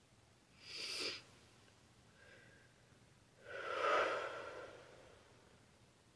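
A person's breathing: a short, sharp sniff about a second in, then a louder, longer breath around four seconds that trails off slowly.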